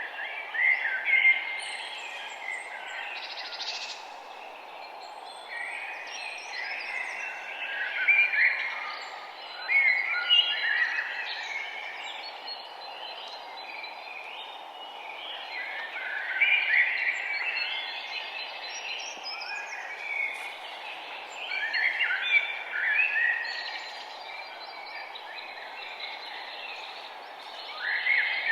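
Songbird singing in short, bright phrases that come every few seconds, over a steady low background hiss.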